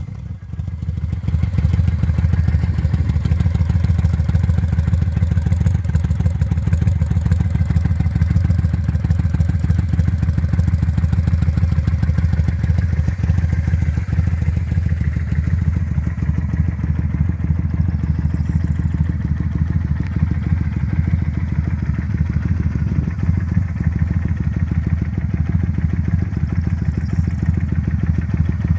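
Kawasaki Vulcan 800 Classic's V-twin engine idling steadily.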